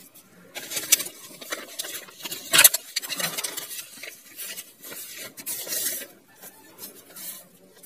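Paper rustling as notebook pages are lifted and turned, with a sharper crackle of paper about two and a half seconds in.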